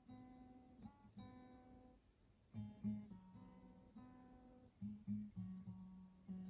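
Acoustic guitar played softly and slowly: plucked notes and chords that ring out and fade, a new one struck every second or so.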